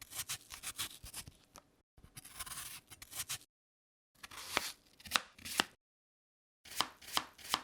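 Kitchen knife cutting pear flesh into small pieces on a cutting board: irregular sharp taps, twice broken off by a brief dead silence.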